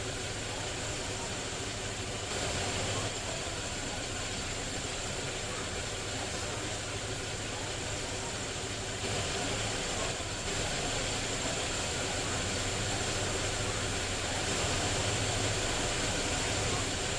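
Car engine idling roughly, a steady low hum with a slightly uneven, noisy running sound.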